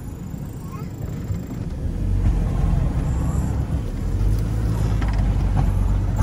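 Off-road 4x4 heard from inside the cabin, its engine and drivetrain rumbling low as it drives over a rough dirt track, louder from about two seconds in, with a few light knocks and creaks.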